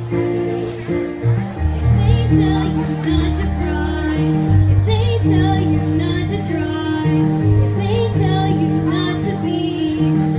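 Voices singing a song together over an instrumental accompaniment of long held bass notes.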